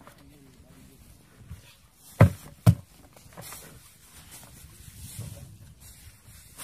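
Two dull thumps about half a second apart, a little over two seconds in, from hands patting the half-buried plastic jerrycan trap and the soil packed around it, with soft handling and rustling of soil and grass between.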